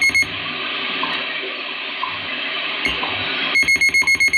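Shortwave receiver audio from a Kenwood TS-440S fed through a BHI NEDSP1061-KBD DSP noise-reduction unit: a steady hiss of band noise. A rapid string of high beeps, about eight a second, cuts in over it briefly at the start and again for about a second near the end.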